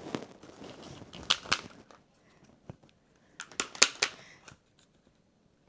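Sharp clicks and knocks from a puzzle box's candle piece being worked at by hand: two clicks early on, then a quick cluster of clicks a little past halfway. The piece is stuck in really tight and does not come out.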